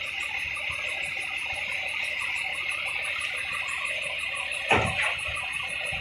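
Large forklift's engine running steadily as it lifts a road roller, with one sharp knock a little before the end.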